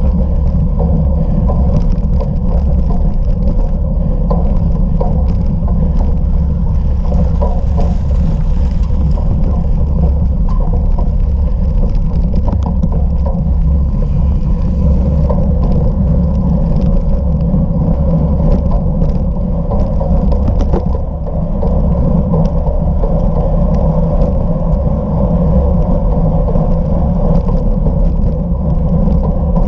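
Wind rushing over the microphone and bicycle tyres rumbling over rough ground during a fast off-road bicycle race, steady and loud, with a steady hum underneath and a brief dip about two-thirds of the way through.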